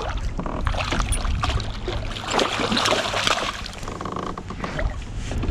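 A hooked largemouth bass thrashing and splashing at the water's surface beside a kayak as it is landed, loudest about halfway through. A steady low wind rumble runs underneath.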